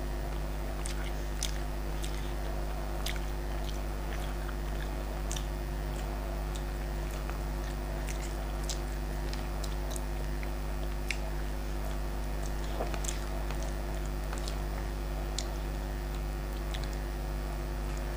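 Close-up chewing of a person eating rohu fish by hand: scattered small clicks of chewing and picking at the fish, over a steady low hum.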